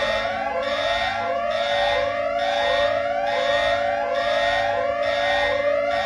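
Electronic emergency alert alarm: rising siren sweeps repeating about once a second over a steady held tone.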